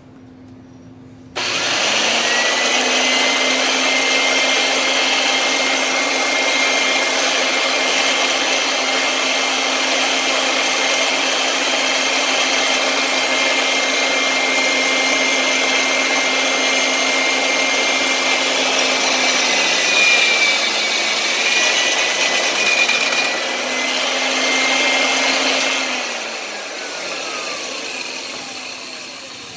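Bench drill press switched on with a sudden start, running steadily as its twist bit drills through stacked steel plates. About 26 seconds in it is switched off, and the motor's whine falls away as it spins down.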